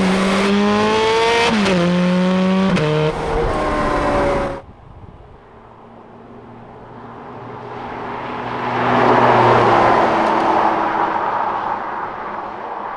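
Sports car engine revving hard, its pitch climbing and dropping with gear changes. About four and a half seconds in the sound cuts off. After that a car passes by, growing louder to a peak midway and then fading.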